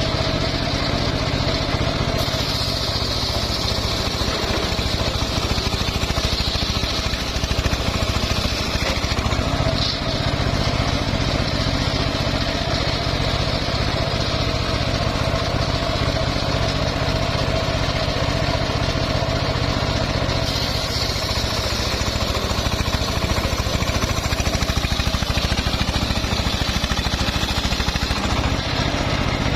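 Engine-driven homemade circular sawmill running steadily. Twice, for several seconds each time (from about 2 s in and again from about 20 s in), a higher hiss joins the engine note as the blade cuts through mahogany.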